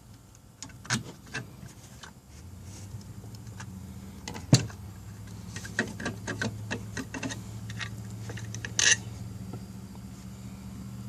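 Small Haier refrigerator's compressor humming steadily, running again now that its failed starter relay has been replaced with a universal PTC starter relay. Scattered clicks and knocks of handling sound over the hum, the sharpest about four and a half seconds in.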